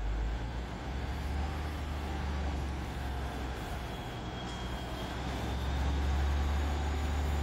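Train standing at the platform with its engine running: a steady low rumble that grows a little louder about six seconds in, with a faint high whine over it.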